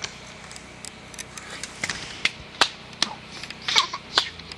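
A toddler's short, squealing giggles, several in quick succession in the second half, mixed with a few sharp clicks.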